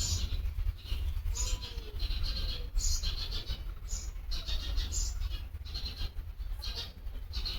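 Fish frying in hot oil, the sizzle swelling and fading about once a second over a steady low rumble, with a few faint bird calls behind.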